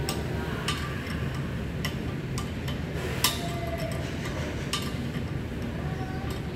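Irregular metal clicks and clinks of a hand wrench working on a car's front suspension strut, with one sharper clink about three seconds in, over a steady low hum.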